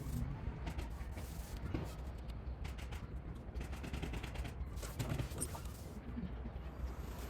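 Hand tools working on a moped: a string of irregular sharp clicks and metal clatter over a low rumble.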